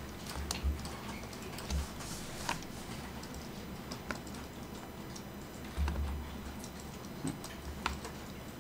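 Scattered clicks of a computer keyboard and mouse, a handful of separate clicks over several seconds, with a few dull low thumps, as the mesh is edited in Blender.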